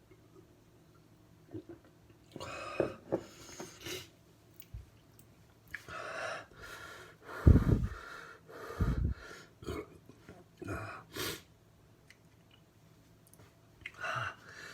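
A man's heavy, pained breathing and wheezing in irregular bursts as he suffers the burn of a superhot chocolate jigsaw chilli, with two loud puffs of breath a little past halfway.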